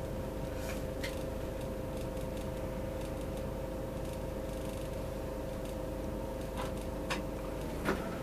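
Inside a city route bus: a steady low rumble with a constant hum running underneath, and a few light clicks and rattles from the cabin, the loudest near the end. The bus is rolling up to a red light and then standing idling.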